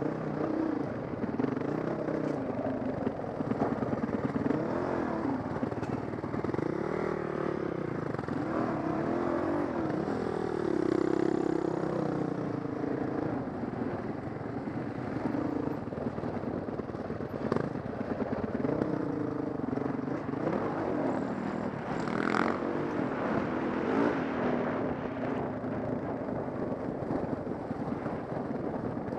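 Dirt bike engine running under load on a rocky trail, its pitch rising and falling with the throttle, with rattling from the ride. A sharp knock comes about three quarters of the way through.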